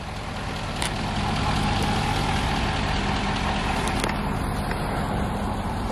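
Ford Super Duty dually pickup, hauling a car-carrier trailer, idling steadily with a constant low hum.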